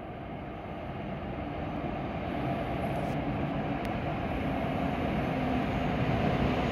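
W7 series Hokuriku Shinkansen train approaching along the platform track, its running noise growing steadily louder as it draws in.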